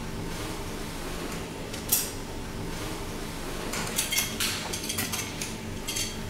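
Metal medical instruments clinking against one another as they are handled on an instrument tray: a single clink about two seconds in, then a quick run of clinks near the end.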